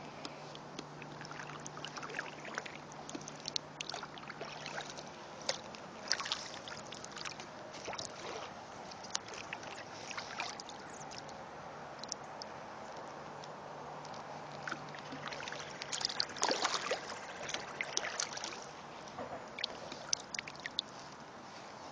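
Kayak paddle strokes in calm river water: the blade dipping and pulling, with drips and small irregular splashes. The splashing is busiest about three-quarters of the way through.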